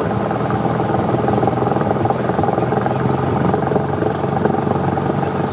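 Auster light aircraft's piston engine and propeller running at low power while the plane taxis slowly on grass, heard from inside the cockpit as a steady drone.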